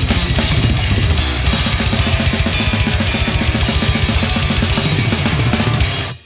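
Death-metal drum kit played fast, a Tama Star Classic with twin 20-inch bass drums and Sabian cymbals: rapid, even double-bass-drum strokes under snare and cymbal hits, mixed with the band's recording of the song. The sound dips out briefly near the end.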